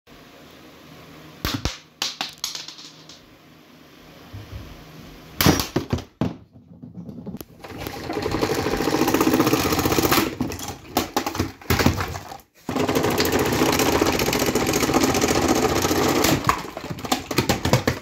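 Cheap guardless table fan being smashed: several sharp knocks, then two long spells of fast clattering as its spinning blade strikes and scrapes against a hard surface, with more knocks near the end.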